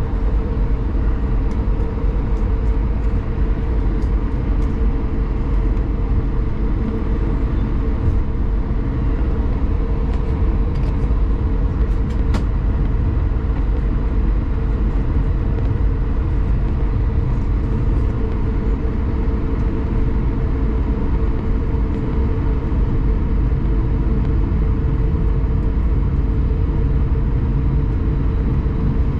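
Cabin noise of an Airbus A220-300 on the ground before takeoff, its engines at low power: a steady low rumble with a constant hum. A few faint clicks come in the first half.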